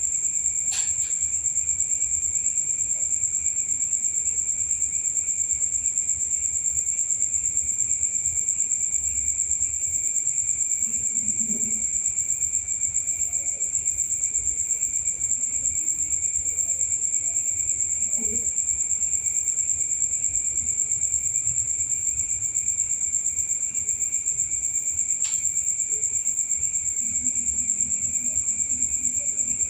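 Insects trilling in a steady, continuous high-pitched drone, with a faint sharp click about a second in and another near the end.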